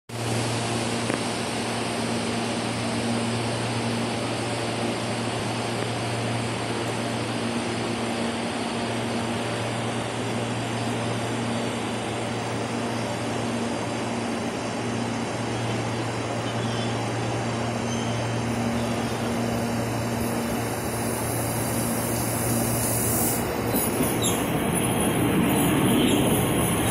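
CPTM Series 9000 electric commuter train approaching slowly and then passing close by: a steady low hum throughout, with the running noise growing louder over the last few seconds as the cars go past.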